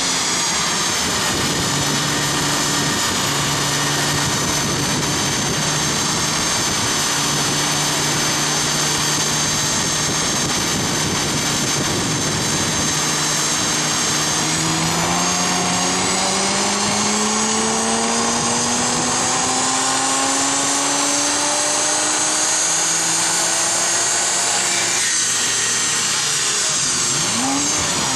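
BMW 1 Series M Coupé's twin-turbo straight-six running on a chassis dyno: it holds a steady speed for about fourteen seconds, then pulls up through the revs with a slowly rising pitch for about ten seconds before the throttle is let off a few seconds before the end. A high whine rises and falls with it.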